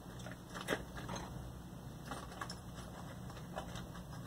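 Light, scattered clicks and taps of hand work on a stereo receiver's FM tuner during alignment, the sharpest about a second in, over a steady low hum.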